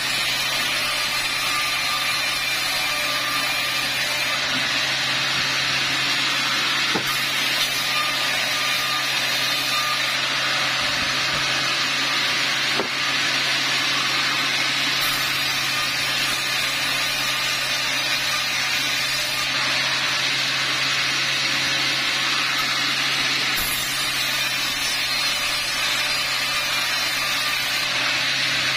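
Vertical band saw cutting lengthwise through a log as it is pushed along the table: a steady low motor hum under the continuous noise of the blade in the wood.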